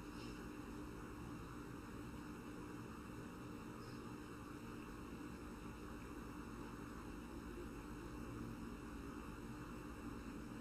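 Faint steady electrical hum with a background hiss: room tone with no other sound.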